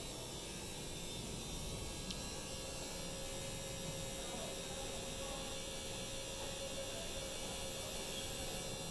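Samsung 7.5 kg front-loading washing machine on its spin cycle at about 1000 RPM: a steady, very smooth hum with no knocking or grinding. A faint steady whine comes in about two and a half seconds in.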